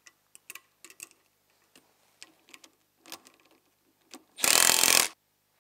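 Small metallic clicks and ticks of bolts, nylock nuts and a hand tool on a snowmobile axle's drive cog as the bolts are tightened, then one loud rush of noise lasting under a second near the end.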